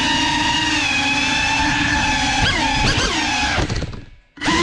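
Cinewhoop quadcopter (GEPRC Cinelog 35) motors and ducted propellers whining, holding a steady pitch, then wavering up and down as the throttle changes. Near the end the whine drops out for about half a second and comes back.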